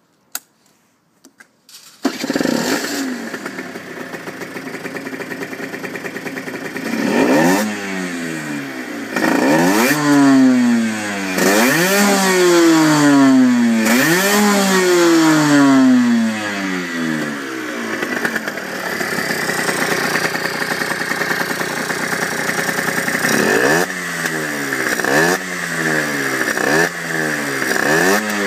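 Aprilia RS50's Minarelli AM6 50cc two-stroke single, fitted with a pod-type power filter, starting about two seconds in after a few clicks, then idling and revved in a series of blips whose pitch rises and falls again.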